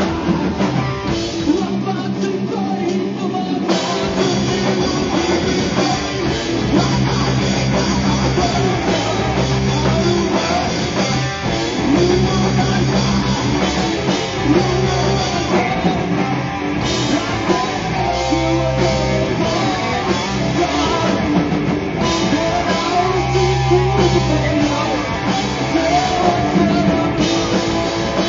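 Live rock band playing loud: electric guitar alone at first, then drums and bass come in together about four seconds in, and the whole band plays on with crashing cymbals.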